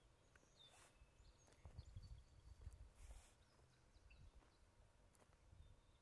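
Near silence: faint outdoor ambience with a low rumble and a few faint, short, high bird chirps.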